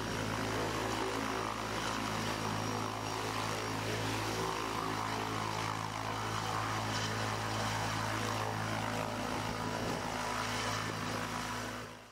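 Helicopter's turbine and rotor running steadily as it lifts off from a helipad and climbs away; the sound fades out at the very end.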